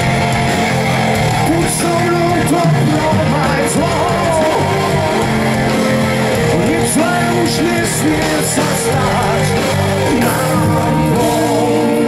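Live rock band playing electric guitars and drums with singing, heard from within the crowd at an outdoor stage.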